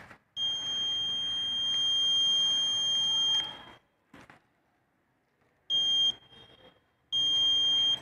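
Buzzer of a homemade IR-sensor door alarm sounding a high, steady tone: the intruder alarm going off. One long tone of about three seconds comes first, then two shorter beeps near the end.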